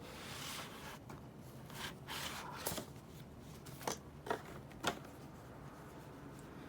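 Paper and plastic album packaging being handled: soft rustling and shuffling, with a few sharp light clicks in the middle.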